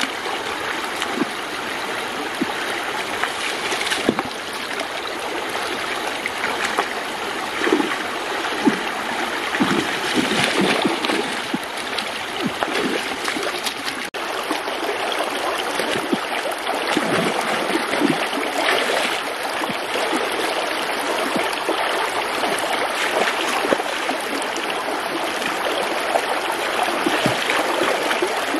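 Shallow stream running steadily over rocks, with splashes now and then as feet wade and hands grab in the water.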